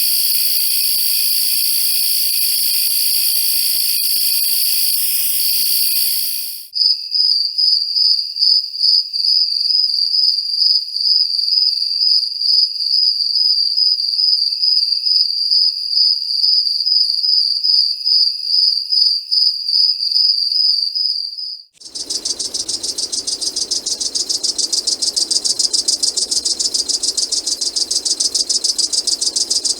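Three separate insect recordings in a row. First a dense, high chorus of crickets and other insects. About six seconds in it cuts to a single cricket's high, pulsing trill, and about twenty-two seconds in it cuts again to a harsh, fast rattling buzz that spreads over a much wider range of pitch.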